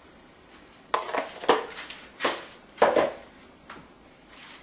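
Kitchen handling noises while seasonings are added to a pan of vegetables: about half a dozen sharp clicks and knocks, irregularly spaced.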